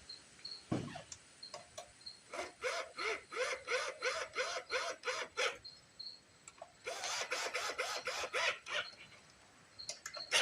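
A hand tool driving the small 5/16 bolts on a generator's carburetor, in quick repeated strokes of about three a second. There are two runs of strokes, the second starting after a short pause.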